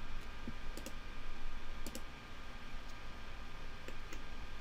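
Computer mouse clicking: a handful of sharp clicks, including two quick double clicks about a second and two seconds in, over a faint steady hum.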